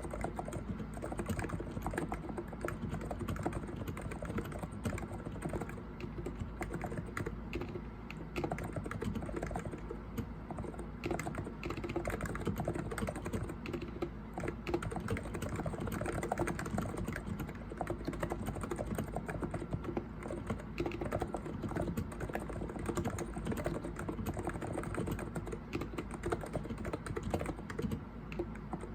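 Cox Endeavor electro-capacitive keyboard with 50 g switches being typed on continuously: a steady, dense stream of keystrokes.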